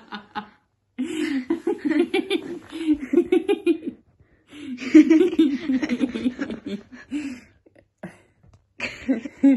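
A woman laughing hard in quick, pulsing bursts: two long bouts of about three seconds each, then a shorter one near the end.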